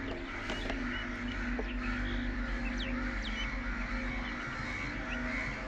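A gathered flock of crows cawing, many calls overlapping in a continuous din.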